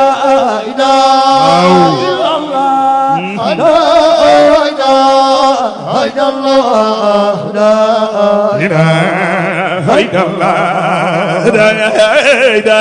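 Men chanting a Sufi zikr in Arabic through a microphone: a lead voice sings a wavering melodic line while other voices hold long steady notes beneath it.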